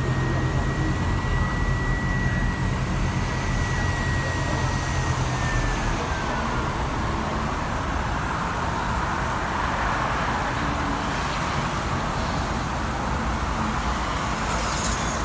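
A city tour bus running, with a low engine drone and a thin high whine that slides down in pitch and fades about six seconds in, as the engine drone drops away. Steady road and traffic noise runs underneath.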